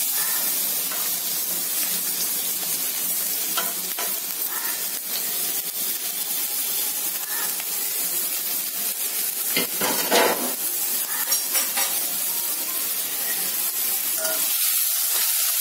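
Freshly added chopped onions frying in hot oil in a stainless steel kadai: a steady sizzle, with a few light clicks.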